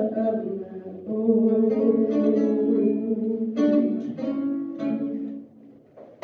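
Archtop guitar playing slow plucked chords that ring out, the closing bars of the song, dying away about five and a half seconds in.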